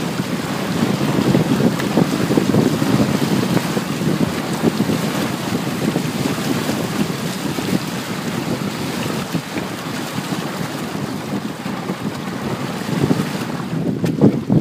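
Wind buffeting the microphone over water rushing and splashing along the hull and outrigger of a Hobie tandem sailing kayak under sail in choppy water. The higher hiss thins a little near the end.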